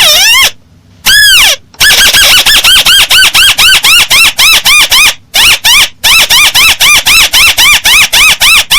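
Crake (burung tikusan sawah) calling: one longer arched note, then a fast run of short harsh calls, about four a second, each rising and then falling in pitch, with a brief break midway.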